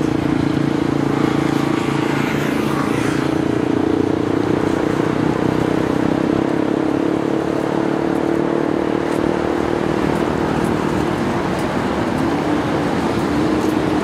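Street traffic noise with a steady engine hum from a road below, holding level throughout.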